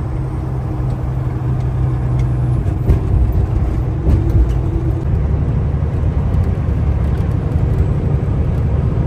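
Semi truck's diesel engine and road noise heard from inside the cab at highway speed: a steady low drone whose engine hum changes about two and a half seconds in.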